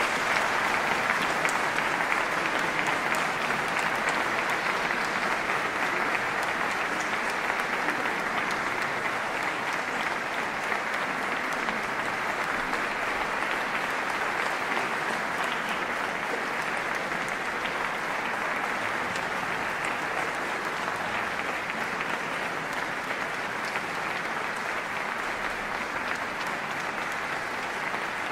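Concert audience applauding steadily, the clapping easing off slightly near the end.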